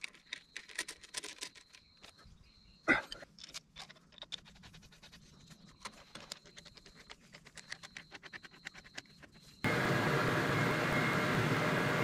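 Scattered light clicks and taps of hand work, with one sharper knock about three seconds in; then, near the end, a sudden switch to a Yanmar mini excavator's diesel engine running steadily.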